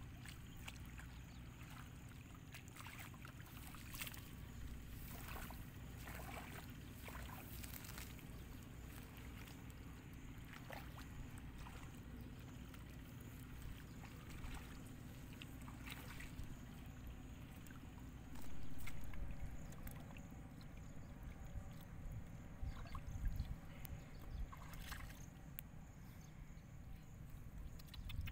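Shallow muddy water splashing and sloshing as someone wades through it and scoops with a plastic basket, in scattered short splashes. One louder swell comes about two-thirds of the way in.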